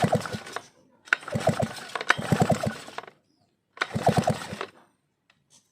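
Vintage Stihl 070 chainsaw's engine being cranked by its pull cord, turning over in fast chugging pulses. There are two bursts with a short silent gap between them.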